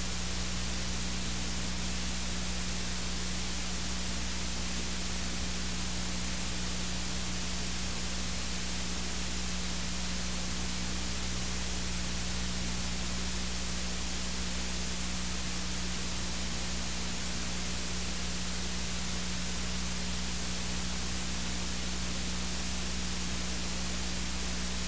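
Steady, loud static hiss with a low steady hum underneath: an empty audio track carrying only noise, no recorded sound.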